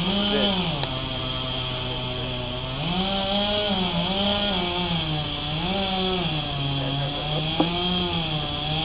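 Two-stroke chainsaw running at high revs while cutting into a tree. Its pitch sags and climbs back again and again as the chain loads up in the wood.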